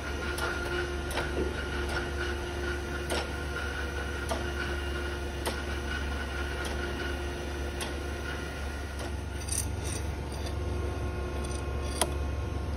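Okamoto surface grinder's hydraulic system running with a steady low hum while the table traverses slowly, with scattered clicks and knocks. A faint whine fades out about halfway through.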